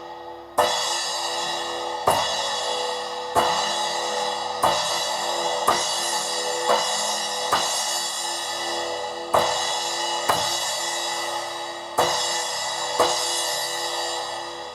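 Zildjian A 10-inch Fast Splash cymbal struck about eleven times, roughly once a second, each hit bright and ringing on before the next; the last hit fades out near the end.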